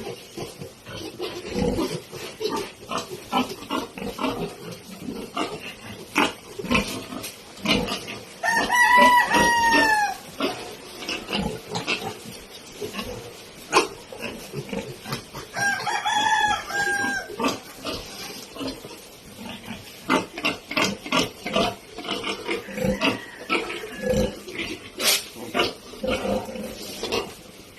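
Three-week-old piglets grunting in short, frequent bursts. A rooster crows twice, loudly, about nine and sixteen seconds in.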